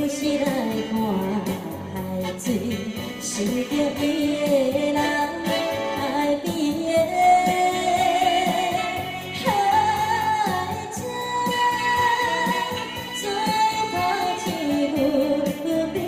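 Saxophone playing a slow, singing melody with held notes and vibrato, over electronic keyboard accompaniment.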